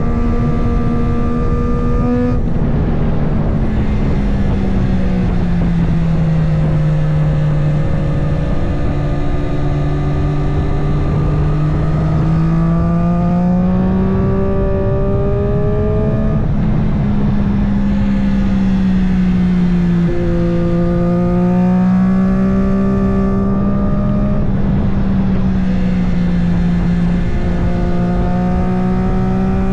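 Triumph 765 Moto2 race motorcycle's three-cylinder engine with a Spark exhaust, running hard on track: the engine note climbs steadily and drops abruptly a few times, over a constant rush of wind.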